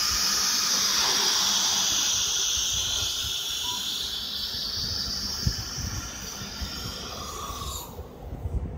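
FORSUN FS1630ATC CNC router's spindle head during an automatic tool change: a high-pitched hissing whine that slowly fades and cuts off shortly before the end, followed by a few light knocks.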